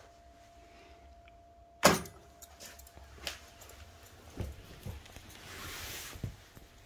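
A sharp click about two seconds in, then scattered softer clicks and knocks and a brief soft rushing noise.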